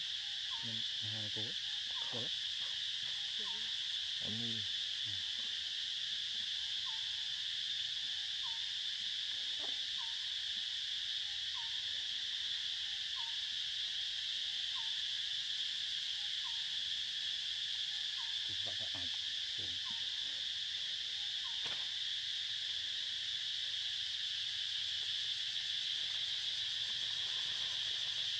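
Steady high-pitched drone of insects, with a short chirp repeating about once a second and a few soft low calls near the start and again about two-thirds of the way in.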